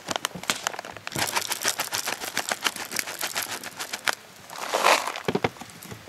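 Crinkling and rustling of material being handled, with a dense run of fast crackling clicks through the middle and a louder rustle with a couple of soft knocks near the end.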